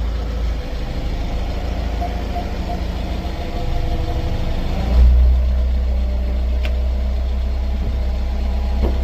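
Low-speed car rumble with a sharp tick about two-thirds of the way in and a fainter one near the end: the tick-tock knocking from a 2019 Genesis G70's front Brembo brakes, which the owner suspects may be brake pad play.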